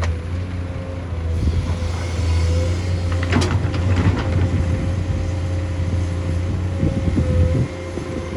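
Heavy diesel machinery running: a steady low engine drone with a steady whine above it, and a cluster of knocks and clatter about three to four seconds in. The drone drops away shortly before the end.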